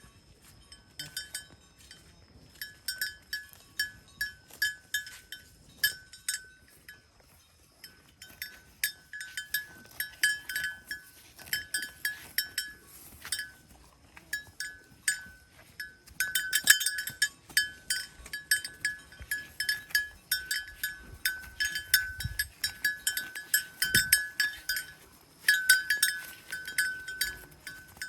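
Livestock neck bells clinking in quick, irregular runs of short ringing strikes as the animals move their heads. The runs are busiest and loudest about two-thirds of the way through and again near the end.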